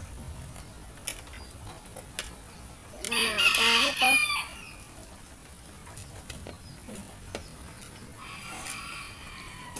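A rooster crows loudly about three seconds in, and a fainter crow follows near the end. Light clicks of a fork and spoon mashing chilies on a plate sound throughout.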